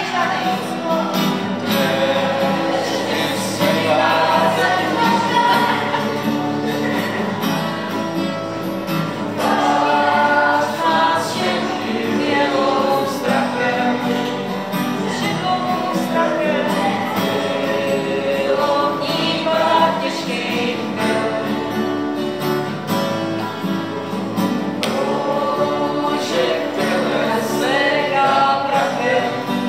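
A group of voices singing a song in unison to two strummed acoustic guitars.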